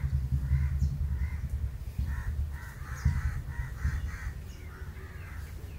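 Crows cawing in a run of short repeated calls, about three a second, over a low rumble.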